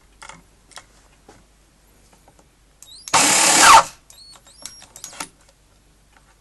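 Cordless drill-driver briefly driving a screw, one loud burst of just under a second about three seconds in. Light clicks and knocks of parts being handled come before and after it.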